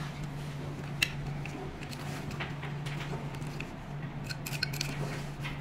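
Short plastic clicks and taps as the parts of a roller-massage handpiece, its ball cage and handle housing, are handled and fitted together, one sharper click about a second in and a quick cluster of clicks near the end, over a steady low hum.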